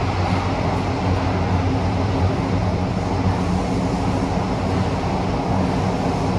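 A CT251 metro train running between stations, heard from inside the carriage: a steady rumble with a low hum.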